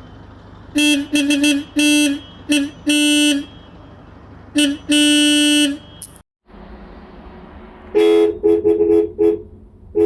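Bus horns tooting. A lower-pitched horn gives several short toots and a longer blast, then a short toot and another long blast near the middle. Near the end a second, higher-pitched horn gives a quick string of short toots.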